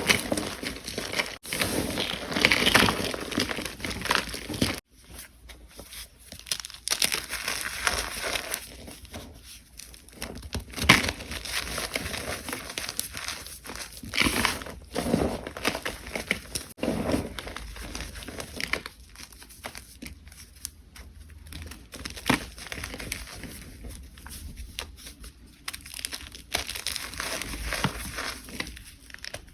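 Gym chalk being crushed, crunching and crumbling in irregular bursts; loudest in the first few seconds, with a sudden break about five seconds in and quieter crunching after.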